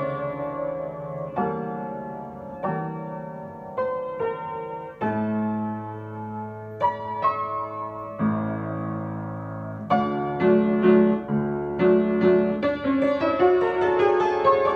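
Upright piano played solo: chords and a melody with notes ringing on, growing busier with more frequent notes from about ten seconds in.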